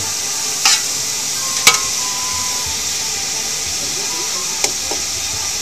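Steady sizzling hiss of food cooking on a gas stove, with three sharp clicks, the loudest about a second and a half in.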